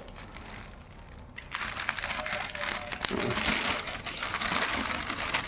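Plastic packaging crinkling as it is handled, starting about a second and a half in and going on steadily.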